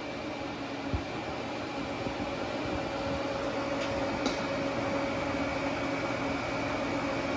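Steady mechanical hum of shop equipment running, with a few steady tones in it. A single sharp knock about a second in and a faint click about four seconds in.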